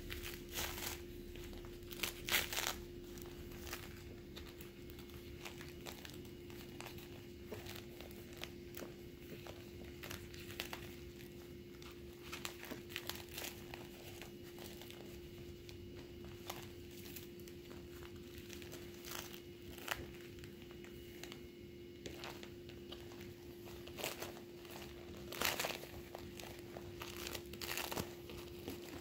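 Deflated vinyl inflatable toys crinkling and rustling as a hand shuffles through the flat stack, in irregular bursts with a few louder rustles near the start and near the end, over a faint steady hum.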